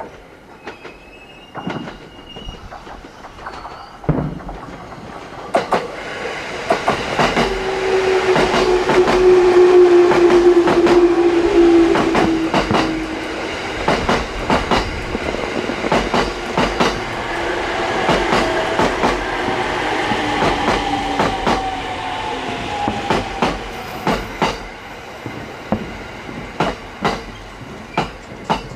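JR Narita Line electric train passing, loudest about ten seconds in and slowly fading, with a tone that falls a little in pitch as it goes by and wheels clacking over the rail joints. Sharp bangs from the fireworks display recur throughout.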